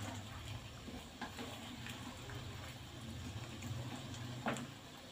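Coconut-milk curry bubbling in a wok while a wooden spatula stirs it, with small scrapes and clicks of the spatula on the pan and one sharper knock about four and a half seconds in. A steady low hum runs underneath.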